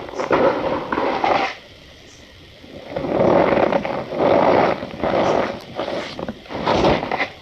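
Packed cornstarch being crushed and squeezed by hand, a squeaky crunching in repeated squeezes, with a pause of about a second and a half shortly after the start.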